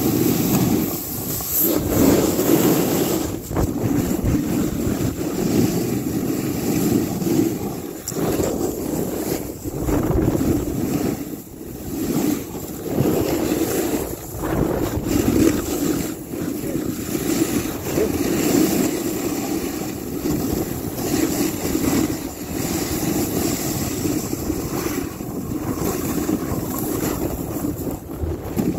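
Snowboard sliding and carving down a steep slope of soft snow, the snow rushing and scraping under the board, with wind buffeting the microphone. The rushing swells and dips over and over.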